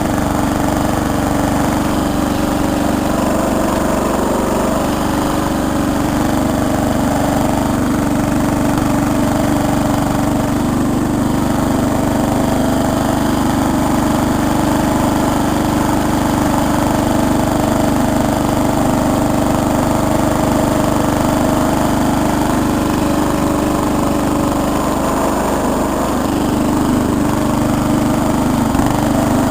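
Riding lawn mower's small engine running steadily at a fairly constant speed, its throttle worked by a home-made gas pedal.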